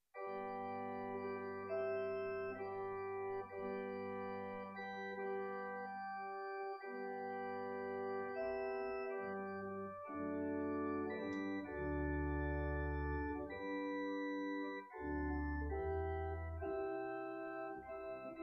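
Organ playing slow, held chords with a deep bass line, the notes sustained and changing in steps; music for the congregation leaving at the close of the service.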